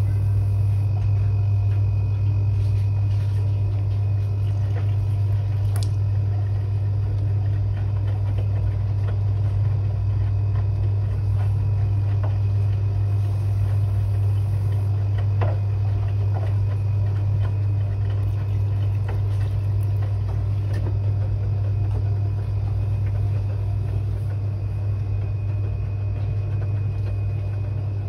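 Washing machine running early in a quick 30 °C wash: a steady low hum at constant level, with faint scattered clicks.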